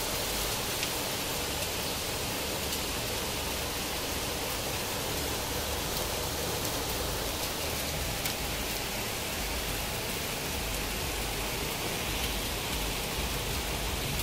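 Heavy rain with hail during a thunderstorm: a steady dense hiss with scattered sharp ticks of individual impacts.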